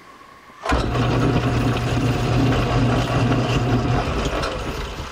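Small metal lathe switched on about a second in and running with a steady hum and gear noise from the headstock, then switched off and spinning down near the end.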